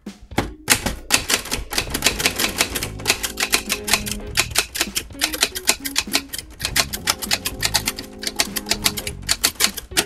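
Fast typing on a We R Memory Keepers Typecast manual typewriter: a quick, uneven run of sharp key and typebar strikes, with background music underneath.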